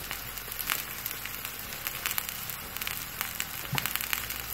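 Vegetable strips and onion rings sizzling in hot oil and vinegar in a pan: a steady hiss with frequent small crackling pops.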